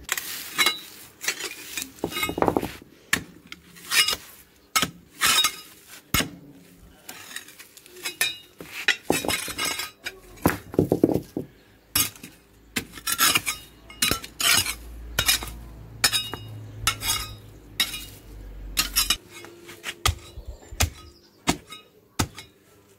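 Metal garden hoe chopping into soil and clearing weeds: repeated sharp strikes at an uneven pace, about one or two a second, some clinking as the blade hits stones.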